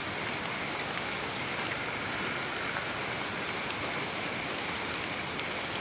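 Night insects such as crickets trilling steadily, with a pulsing chirp repeating about two to three times a second, over an even steady hiss.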